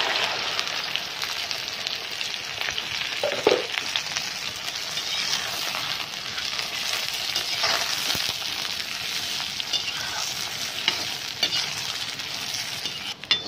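Cut okra frying in hot oil in an iron karahi: a steady sizzle, loudest just after the okra goes in and then settling, with occasional scrapes and clinks of a metal slotted skimmer stirring it.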